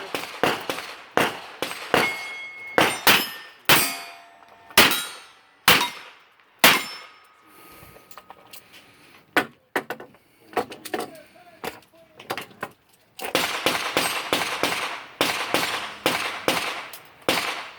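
Revolver shots fired in runs at steel targets, each hit answered by the clang and brief ring of a steel plate. The shots come thick in the first seven seconds, thin out in the middle and bunch up again near the end.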